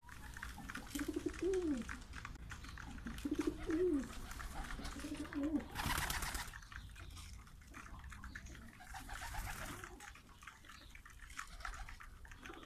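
Domestic pigeons cooing, three low rising-and-falling coos in the first six seconds, over a steady scatter of beak ticks as they peck seeds off concrete. About six seconds in, a short loud flurry of wingbeats as one pigeon flaps up.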